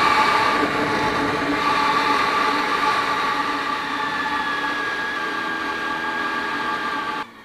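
Honda VFR400R NC30's V4 engine running at steady cruise under wind rush. A higher note slowly drops in pitch about halfway through, and the sound cuts off abruptly near the end.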